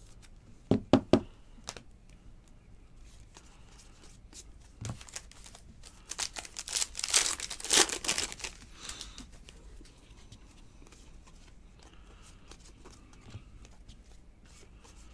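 A foil wrapper of a Panini Contenders Draft Picks football card pack being torn open and crinkled by hand. There are a few sharp knocks about a second in, and the loudest stretch of crinkling comes about seven to eight seconds in.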